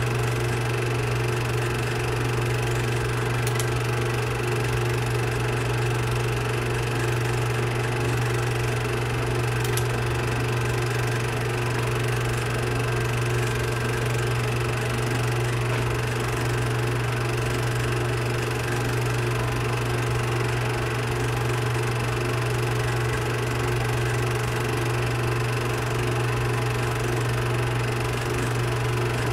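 Film projector running with a steady mechanical hum and whir.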